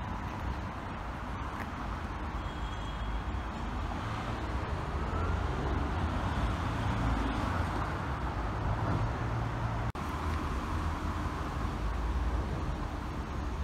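Steady outdoor road-traffic noise, a low rumble that swells somewhat in the middle, with a brief break about ten seconds in.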